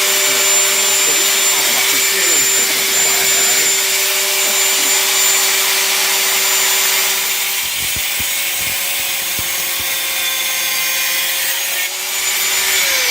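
Electric grinder running steadily at high speed and grinding metal, a constant motor whine over a harsh hiss. It is switched off near the end and its pitch falls as it spins down.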